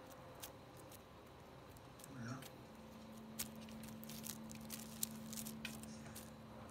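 Faint, scattered light clicks and taps as a kitten bats at a dangled string over a wooden floor. A brief low voice sound comes about two seconds in, and a steady low hum starts about three seconds in.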